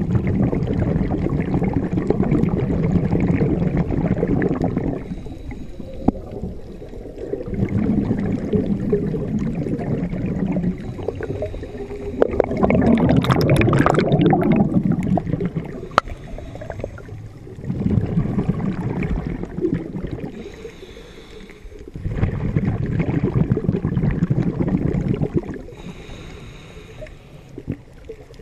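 Scuba diver breathing through a regulator underwater: five long bursts of exhaled bubbles gurgling, about every five seconds, with quieter inhales between them.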